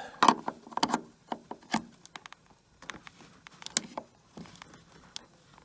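Irregular sharp knocks and clicks, about eight in a few seconds with the loudest near the start, from a door and its hinge being worked while the hinge is bent with a homemade C-shaped hinge-bending tool to stop the door binding against the frame.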